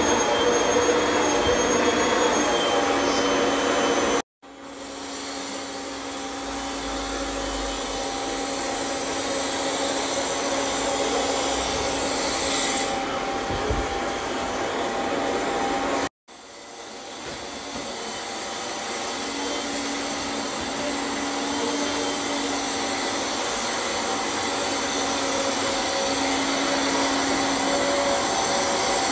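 Canister vacuum cleaner running steadily on a fabric sofa, a rushing airflow with a steady motor whine. The sound cuts off abruptly twice and each time rises back over a few seconds.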